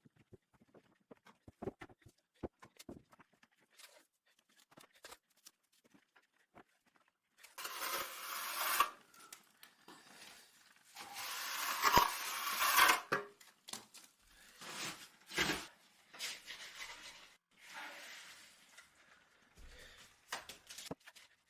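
A hand tool scraping against the mortar joints of a stone wall while it is being regrouted. Faint scattered clicks and taps come first, then several rough scrapes of a second or two each, the longest about halfway through.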